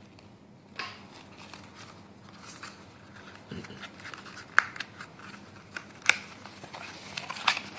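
Paper leaflets and a thin black card folder being handled: rustling and flapping of paper and card, broken by several sharp snaps and ticks, the loudest around the middle and again near the end.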